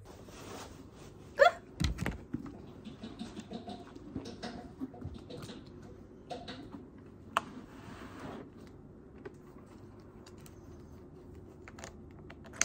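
Small items and packaging being handled: scattered rustles, clicks and taps, with a sharp click and a thump about two seconds in.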